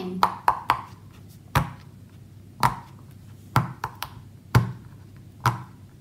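Silicone pop-it fidget toy, its bubbles pushed through one at a time by fingertip: about ten sharp pops at irregular spacing.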